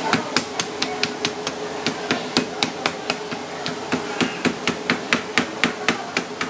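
Meat cleaver chopping rapidly through a cooked coconut crab leg onto a cutting board, a steady run of sharp knocks at about four a second.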